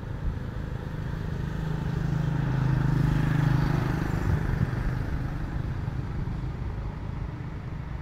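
A motor vehicle passing by: a low engine hum that swells to its loudest about three seconds in, then fades away.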